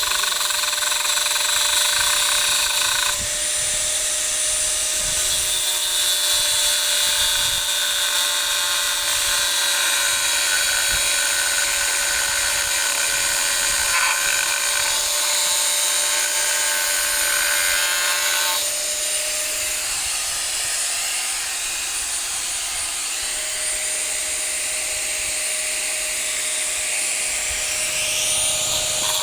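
A power tool runs steadily with a high, hissing whine. Its tone shifts about three seconds in and again around nineteen seconds in.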